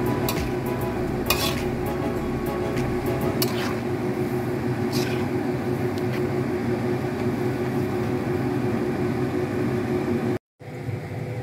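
Noodles simmering and being stirred in hot water in a wok, with a steady bubbling hiss and a few sharp clicks of a utensil against the pan in the first few seconds. The sound cuts out briefly twice near the end.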